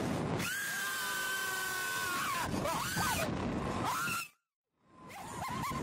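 Wind rushing over the microphone of the camera on a Slingshot reverse-bungee ride, with a rider's long held scream and shorter cries. The sound cuts out for about half a second a little after four seconds in.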